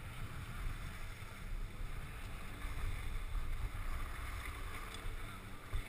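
Wind rumbling on a skier's body-worn camera microphone, over the steady hiss of skis sliding slowly on packed snow.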